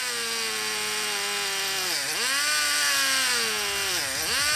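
Small nitro glow engine driving a handheld rotary tool at high revs while its cutoff wheel cuts into a wooden board. The engine's pitch sags twice under the load of the cut and picks back up each time.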